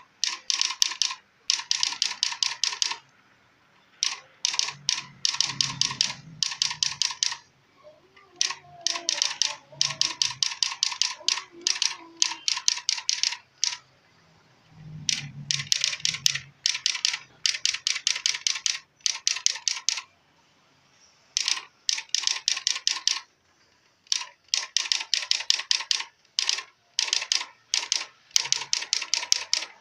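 Samsung SQ-1200 electronic typewriter striking characters in fast, even runs of a second or two each, separated by short pauses.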